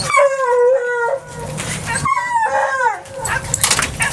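Dog howling twice, each call about a second long, the second falling in pitch at its end.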